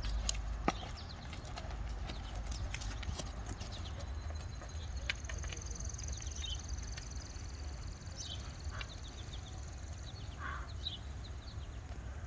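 A horse walking on a sand arena, its hoofbeats coming as soft, irregular thuds and clicks over a steady low rumble. A faint, steady high-pitched whine sets in about two seconds in.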